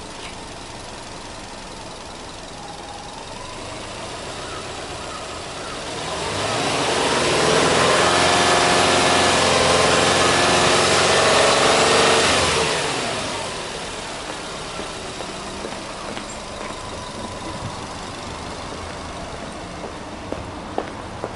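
Subaru Impreza S-GT's 2.0-litre turbocharged flat-four boxer engine idling, then blipped up about six seconds in, held at high revs for about five seconds, and let fall back to a steady idle.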